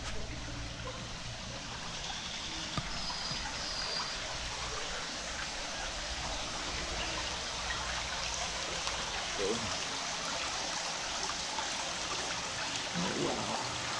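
Steady hiss of running water, like a small stream or fountain, with a few faint voices briefly near the end.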